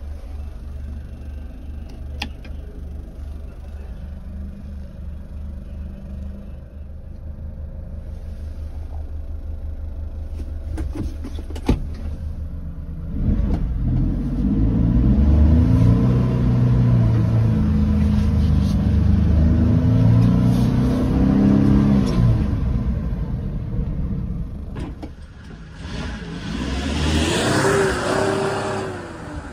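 1993 Mitsubishi Minicab kei truck's small three-cylinder engine idling steadily, then driving off with its revs rising and falling through the gears. Near the end a single loud swell rises and falls as the truck drives past.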